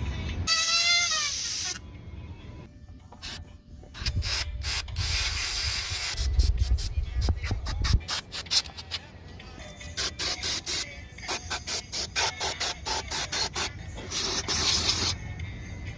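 Canned air duster spraying in hissing blasts to blow dust out of a solar generator's insides. There is one long blast with a whistle in it soon after the start, then longer sprays, then many quick short puffs near the end.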